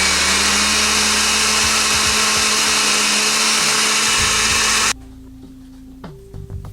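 Countertop blender running steadily, then switched off abruptly about five seconds in, followed by a few small clicks.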